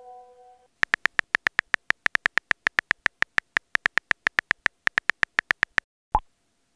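Smartphone keyboard clicks: a quick, slightly uneven run of about six taps a second for some five seconds as a chat message is typed. About six seconds in comes a single short message-sent pop. At the start, the last of an incoming-message chime dies away.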